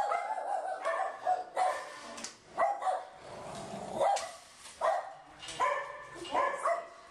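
Dog barking over and over, about one bark a second.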